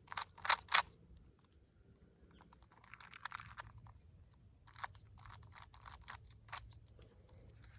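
Rubik's cube layers being turned by hand in quick succession: sharp plastic clicks and clacks, loudest in the first second, then sparser and fainter.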